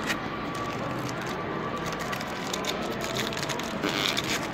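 Trading cards and a foil pack wrapper being handled: light clicks and rustling, with a denser crinkle about four seconds in, over the steady background noise of a busy hall.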